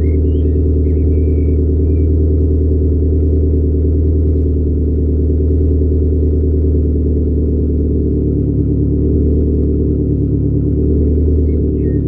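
Ford Escort's engine idling steadily at the tailpipe, still cold after the car has stood unused for a month.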